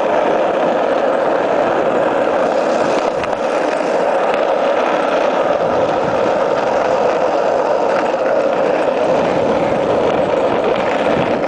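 Skateboard wheels rolling fast over street asphalt: a steady, loud rolling noise with no let-up.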